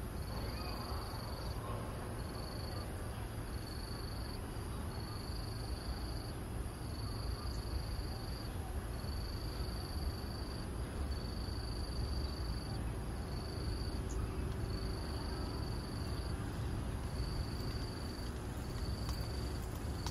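An insect's high, steady trill sounding in even on-off spells of about a second with short gaps, over a continuous low rumble of outdoor background noise.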